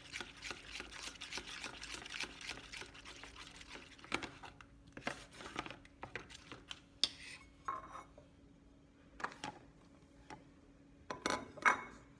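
Metal spoon stirring a thick wet mixture in a stainless steel pot, scraping and clinking against the sides. The stirring is densest in the first few seconds, goes quieter partway through, and ends with a few more clinks near the end. A faint steady hum sits underneath.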